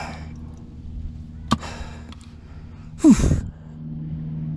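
Used oil filter knocked against a metal catch pot with a single sharp clink about a second and a half in, then a short breathy grunt that falls in pitch about three seconds in.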